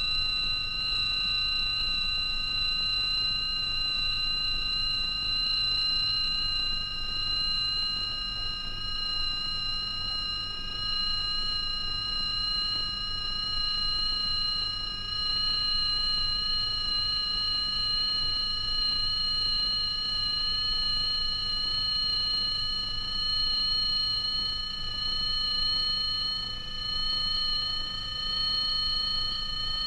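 Electronic sine-wave glissando from a film soundtrack: several high, steady tones climbing very slowly in pitch.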